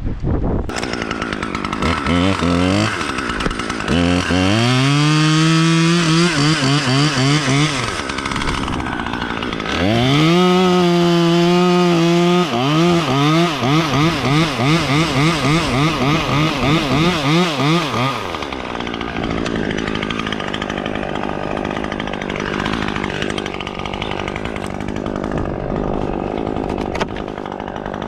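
Chainsaw speeding up to full speed about two seconds in and holding there, easing off near eight seconds, then speeding up again. It then revs up and down about twice a second while cutting, and stops after about eighteen seconds. Steady rushing noise, like wind on the microphone, follows.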